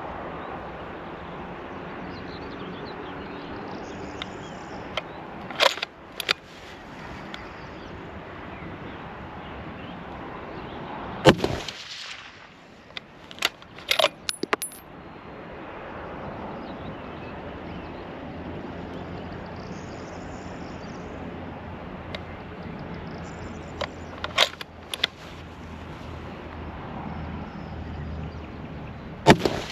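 Tikka T3X TACT A1 bolt-action .308 rifle: sharp single shots, the loudest about eleven seconds in with a ringing tail and another near the end, with quick metallic clicks of the bolt being worked and brass clinking in between. A steady background hiss runs underneath.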